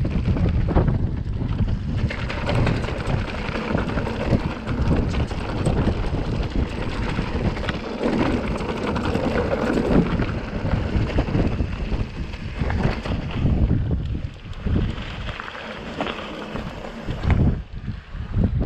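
Wind buffeting the microphone of a mountain bike's handlebar camera, over the rumble of tyres on a dry, stony dirt trail and frequent knocks and rattles of the bike over bumps. It gets quieter and more uneven in the last few seconds as the bike slows.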